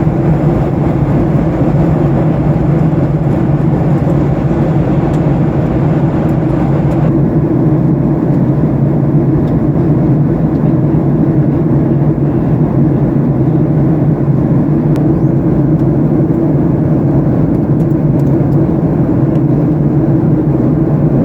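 Steady cabin noise of a Boeing 737-800 in flight: the drone of its CFM56 jet engines and the rush of air past the fuselage. About a third of the way in, the higher hiss drops a little and stays lower.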